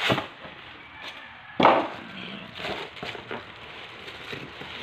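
Packing being handled inside a cardboard box: styrofoam inserts and plastic wrap rubbed, crinkled and shifted by hand. There is a series of short scrapes and knocks, the loudest about a second and a half in.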